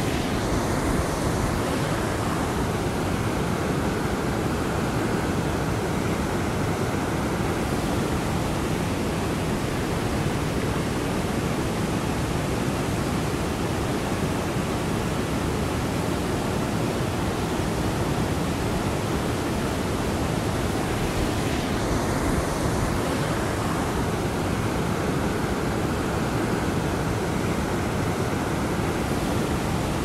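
Whitewater river rapids rushing, a steady, dense wash of water sound like white noise.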